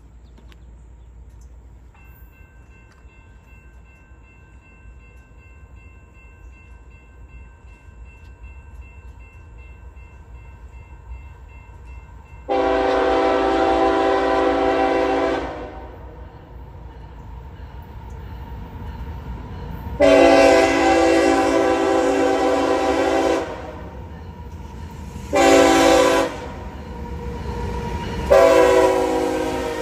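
Diesel freight locomotive horn blowing the grade-crossing signal: two long blasts, a short one, then a long one near the end. Under it the low rumble of the approaching train grows louder as the locomotives draw close.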